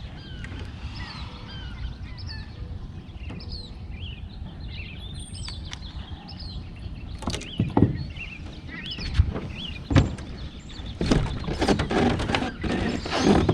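Small birds chirping over a low wind rumble. From about seven seconds in come scattered knocks and bumps, which grow louder and busier near the end.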